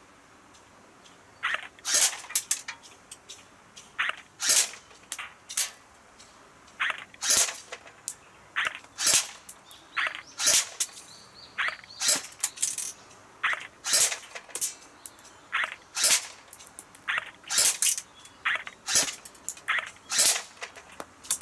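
Tokyo Marui Glock 18C electric airsoft pistol fired shot by shot, sharp cracks at irregular spacing, some close together in pairs, with BBs striking the metal plates of a flip-down target. The shooting starts about a second and a half in.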